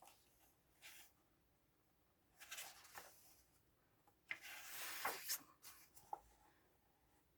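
Pages of a paperback colouring book being turned by hand: soft paper rustles three times, the last one the longest and loudest, followed by a small tap.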